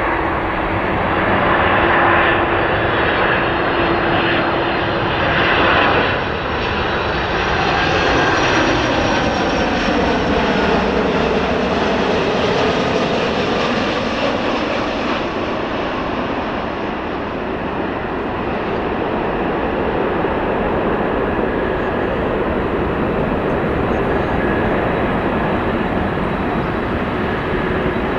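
Jet airliner engines heard steadily as the aircraft passes by, with a sweeping, phasing whoosh in the middle as it goes past.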